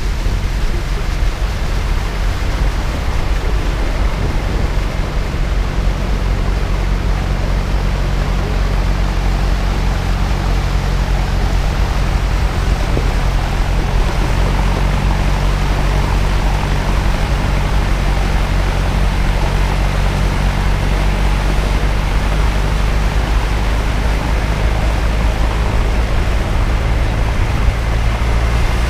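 A 4x4's engine running steadily under load as it drives through deep flood water, with a constant rush and splash of the bow wave thrown up around the vehicle.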